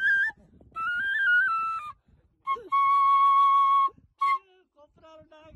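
Solo brass side-blown flute played by mouth: a short note, then a phrase stepping up and back down, then a long held note with a slight waver in the middle, and one brief note after it.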